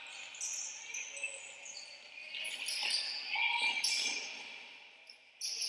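Basketball shoes squeaking on a wooden gym floor during play: scattered short, high squeaks.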